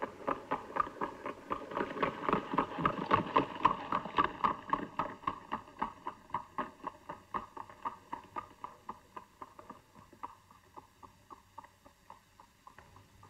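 Quick, even clip-clop of hoofbeats. They grow louder over the first few seconds, then fade away steadily as they recede.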